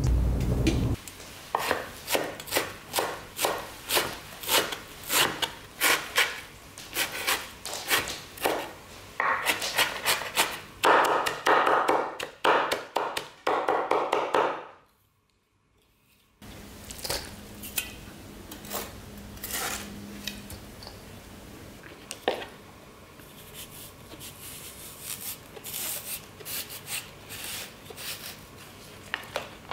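Kitchen knife chopping bean sprouts on a wooden cutting board: quick sharp strikes, a few a second, growing faster and denser before a short silent break about halfway. After the break come lighter, sparser knife cuts and taps on the board.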